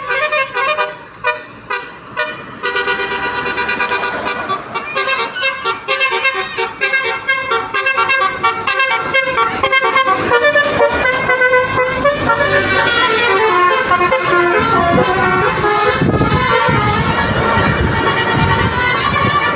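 Basuri musical horn on a passing vehicle playing a fast tune of short notes, after a few separate toots at the start. Engine and road noise grows louder in the second half as the vehicle comes by.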